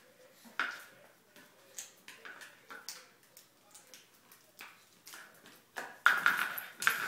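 A small capped juice bottle knocking and scraping on a wooden floor as a small dog paws, mouths and shakes it, with claws clicking on the boards. Scattered taps at first, then about six seconds in a much louder, dense clatter as the dog picks the bottle up and thrashes with it.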